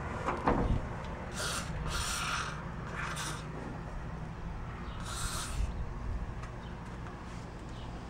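Aerosol spray lubricant hissing out in four short bursts onto a stiff seat-tilt mechanism to loosen it.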